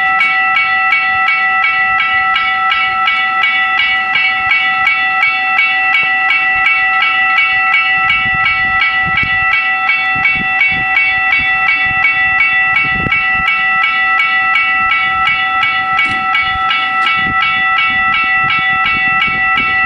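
Level crossing warning bells ringing without pause, a rapid, even train of strokes over steady ringing tones, signalling that a train is coming.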